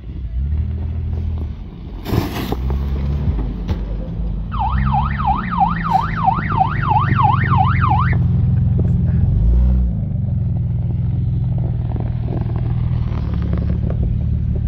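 Vehicle engine running with a steady low rumble that rises and falls in pitch as the revs change, with a short burst of noise about two seconds in. From about four and a half to eight seconds, a siren-like whooping tone sweeps rapidly up and down, about three times a second.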